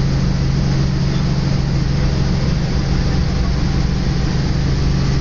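Helicopter in flight, heard from inside the cabin: steady engine and rotor noise with a strong low hum.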